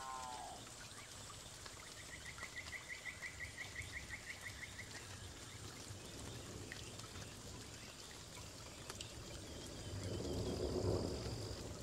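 Forest ambience: a pitched animal call fades out in the first half second, then a rapid trill of about six clicks a second runs from about two to five seconds in. Near the end a thin, steady high whistle sounds while a soft rustling swells and fades.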